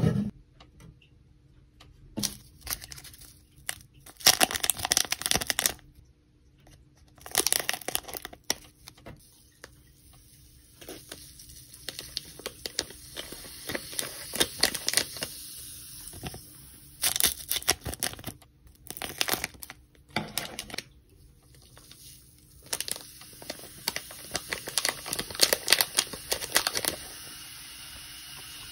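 Plastic sachet crinkling and rustling in bursts as it is torn and squeezed to empty red granules into a jug of water. Near the end a steady faint hiss of the water fizzing as the granules dissolve.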